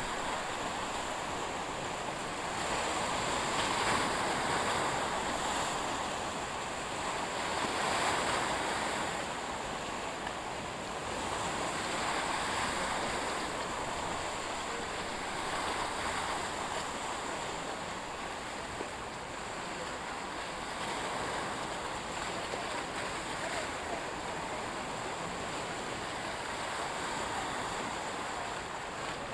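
Sea waves washing against the shore, a steady rush that swells and eases every few seconds.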